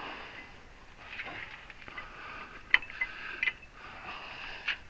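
A few light, sharp clicks and knocks of parts and gear being handled, the clearest three in the second half, over faint rustling.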